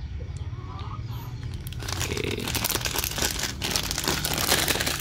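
Plastic instant-noodle packet crinkling as it is held and turned over in the hand, sparse at first and getting busier and louder from about two seconds in.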